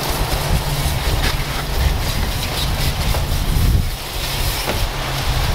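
Pressure washer spraying cleaner and then water over an engine bay: a steady low motor hum under the hiss of the spray jet.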